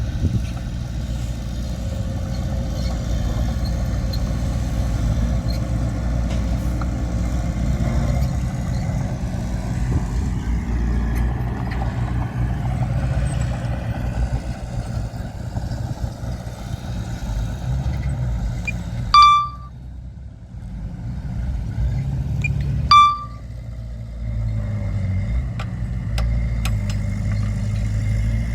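Heavy earthmoving machinery's diesel engine running steadily with a low rumble, broken by two short, loud, high beeps about four seconds apart past the middle.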